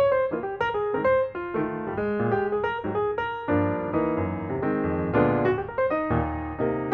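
Background piano music: a steady run of quick notes over a lower bass part.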